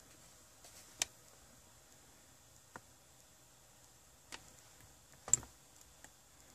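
A few sharp, separate clicks from a finger tapping an Android touchscreen car head unit, the loudest a little after five seconds, over a faint steady background.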